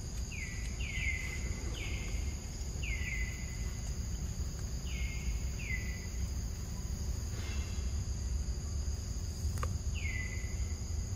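Steady high-pitched insect drone at two pitches, with a series of short falling chirps repeating about once a second for the first several seconds, over a low outdoor rumble.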